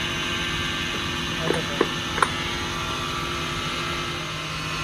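Steady hum of a running workshop machine, with three short sharp knocks about one and a half to two seconds in.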